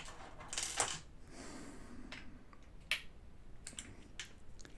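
Small clicks and scrapes of airsoft rifle parts being handled and fitted back together, with a short scrape near the start and a sharp click about three seconds in.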